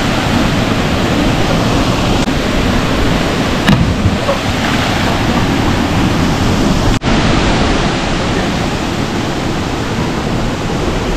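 Steady, loud rush of a small waterfall pouring into a rock pool, briefly cut off about seven seconds in.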